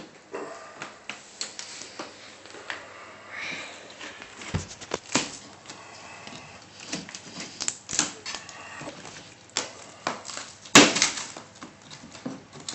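A hammer knocking and chipping at drywall in a run of irregular strikes, with plaster crumbling onto a wooden floor; one blow about two-thirds of the way through is much harder than the rest.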